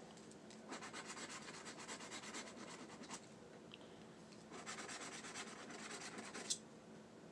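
Scratch-off lottery ticket ('20X The Cash') being scratched in quick back-and-forth strokes, in two spells of about two seconds each. The rasp is faint.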